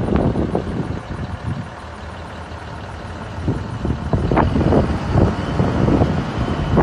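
Self-loading concrete mixer's engine running, a rough, uneven rumble that eases off about a second in and picks up again after about three and a half seconds.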